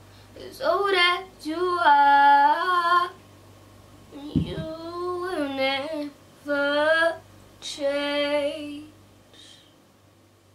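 A girl singing a worship song unaccompanied, in five or six held phrases that die away about nine seconds in.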